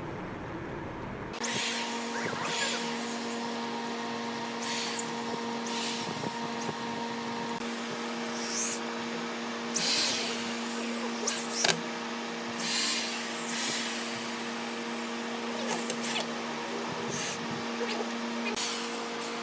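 A steady machine hum, broken every second or two by short, loud hissing bursts.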